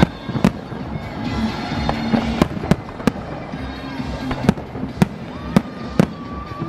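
Fireworks display: aerial shells bursting in a string of sharp bangs, about nine at uneven intervals, over a steady rumble. A thin whistling tone starts about five and a half seconds in.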